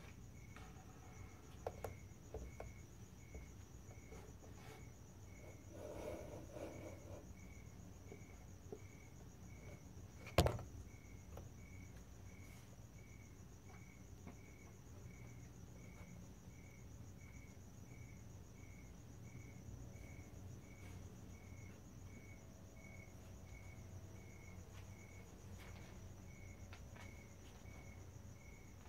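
Faint night insects chirping: an even chirp repeating a little over once a second, over a steady high-pitched trill. A single sharp knock about ten seconds in is the loudest sound.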